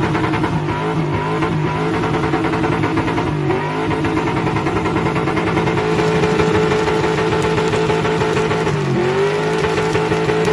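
A car engine held at high revs during a burnout, its rear tyre spinning against the pavement. The revs dip briefly and climb back about a third of the way in, and again near the end. The rear tyre is worn through and throwing sparks.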